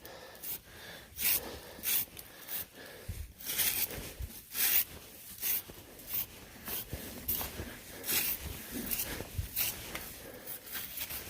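Repeated, irregular brush strokes sweeping snow and ice off a pony's coat, about one stroke a second.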